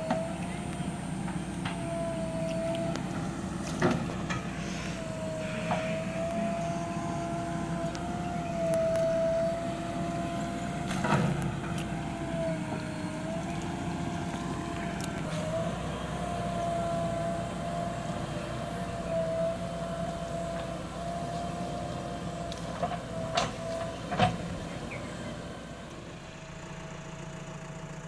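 A JCB backhoe loader's diesel engine running under work, with a steady whine that wavers a little in pitch. Sharp metallic clanks come once about 4 seconds in, again about 11 seconds in, and twice close together near 23–24 seconds. The machine quietens a couple of seconds before the end.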